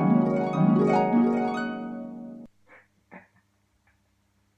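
Harp-like plucked music, notes overlapping in quick arpeggios, that cuts off suddenly about halfway through, followed by a couple of faint short sounds.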